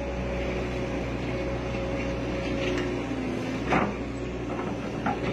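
Hitachi hydraulic excavator's diesel engine running steadily under load while it digs with its bucket, with a sharp knock a little before four seconds in.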